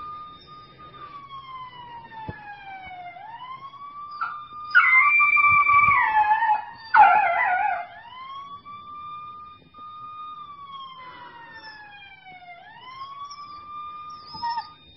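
A siren wailing, rising and falling slowly every few seconds. A golden retriever puppy howls along with it twice in the middle, its wavering howls the loudest sounds.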